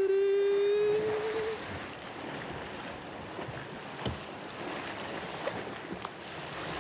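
A long held sung note with a slight upward glide ends about a second and a half in, giving way to wind and waves on open sea, with a couple of faint knocks.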